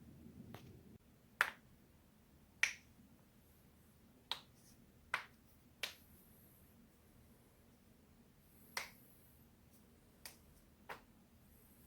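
Human joints cracking: a series of about eight sharp, short pops at irregular intervals, a second or more apart.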